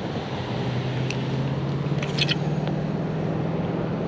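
Road traffic on a nearby highway: a steady hum of passing vehicles with a low engine drone, plus a couple of faint clicks about two seconds in.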